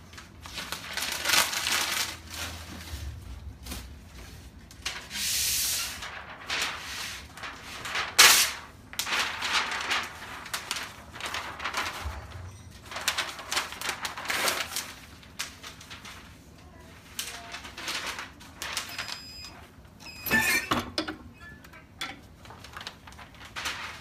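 Irregular rustling and handling noises of sublimation paper and neoprene pieces around a heat press, with a short steady hiss about five seconds in and a sharp click about eight seconds in. Near the end, a clatter as the heat press is opened at the end of its timed press.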